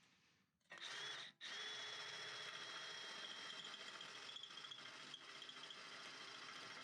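A small motor starts suddenly under a second in, cuts out for an instant, then runs steadily with a high whine and a rattling buzz.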